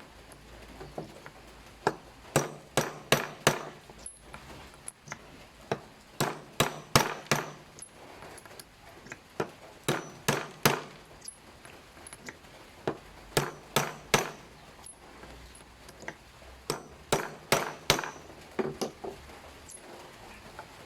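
Tapping: sharp knocks in quick runs of four or five strikes, a run about every three to four seconds.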